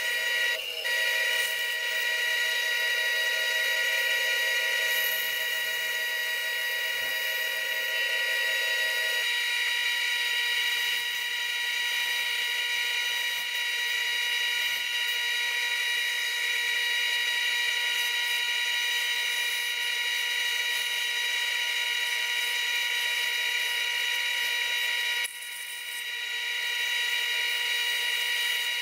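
Bandsaw running with a steady high whine as its blade cuts curves through thick wooden letter blanks. The sound dips briefly near the end, then comes back up.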